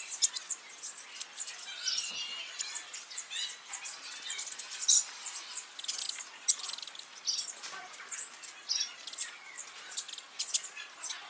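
Small birds chirping, many short high-pitched chirps following one another in quick succession.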